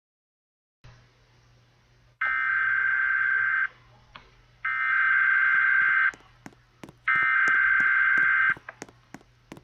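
Emergency Alert System SAME header: three loud bursts of screechy digital data tones, each about a second and a half long and about a second apart, over a low hum, with scattered clicks after the third burst. The header is the coded alert data that opens the broadcast, here for a tornado warning.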